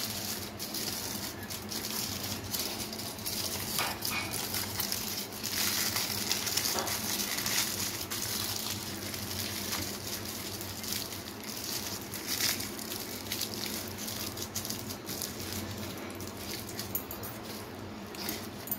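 Aluminium foil crinkling and crackling as it is handled and folded around a rolled egg roll, with many small crackles throughout.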